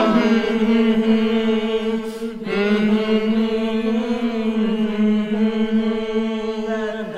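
A long chanted vocal note held at one steady pitch, breaking briefly just after two seconds in, then held again until it stops just before the end.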